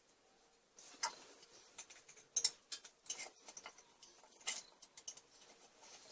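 Irregular light clicks and knocks of metal parts and tools being handled while a moped's rear shock absorber spring is held compressed and its parts are fitted, with a couple of sharper knocks around two and a half and four and a half seconds in.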